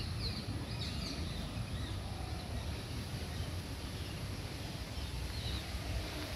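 Outdoor ambience with a few short, high bird chirps, a couple near the start and one more near the end, over a steady low rumble.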